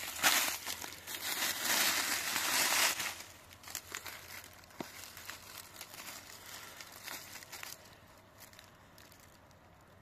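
Dry leaf litter rustling and crackling as a hand works through it and pulls a large mushroom out of the forest floor. The rustle is loudest for the first three seconds, then fades to a few soft crackles.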